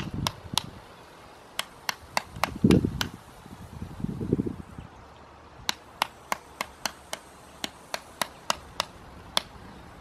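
Small switches on a model-railway servo controller panel being flicked one after another: sharp clicks about three a second, in two runs with a pause between. A few dull low rumbles come in the first half.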